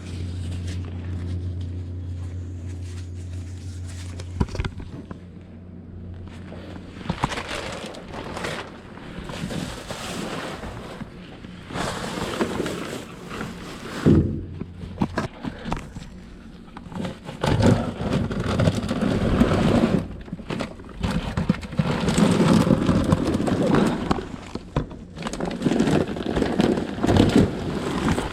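Rummaging through cardboard boxes and trash bags in a dumpster: irregular rustling and scraping with scattered knocks and thuds. A steady low hum runs underneath for the first few seconds, then stops.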